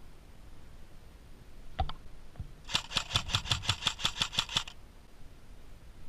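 Airsoft gun firing a rapid string of about fourteen shots, roughly seven a second, for about two seconds, after a single sharp click about two seconds in.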